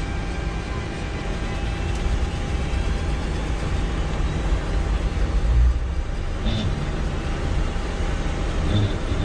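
Boeing 747-200 flight-deck noise while taxiing: a steady rumble and hiss from the running jet engines and airflow. Two brief faint chirps come near the end.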